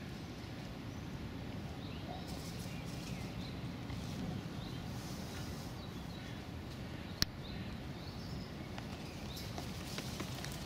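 Steady outdoor background noise with soft rustling as a crow works at the denim on a knee, and one sharp tap about seven seconds in.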